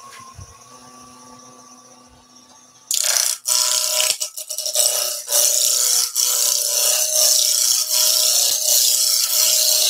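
Wood lathe running with a faint hum that rises slightly as it comes up to speed. About three seconds in, a turning tool starts cutting the spinning softwood blank: a loud, steady shaving and scraping noise, broken now and then for a moment as the tool comes off the wood.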